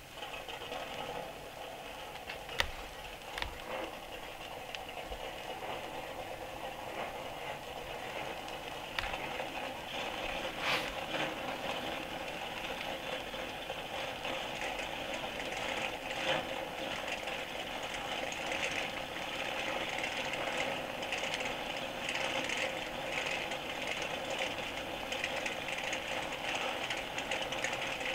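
A field of stock-car V8 engines running together, heard as a thin, rattling drone played off an old vinyl record, with a few sharp clicks from the record surface. The engine sound grows slowly louder.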